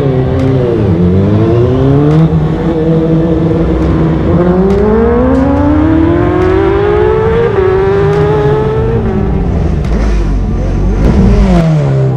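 Racing motorcycle engines revving: the pitch dips and climbs in short blips near the start and end, and in the middle one engine accelerates with its pitch rising steadily for several seconds, stepping at a gear change.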